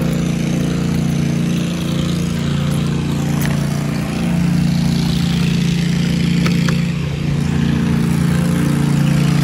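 A steady low engine-like hum that holds one pitch throughout, with a couple of faint ticks.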